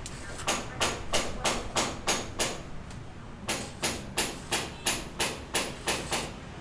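Repeated hammer blows, about three a second, in two runs with a short pause near the middle, as in hand hammering on a building site.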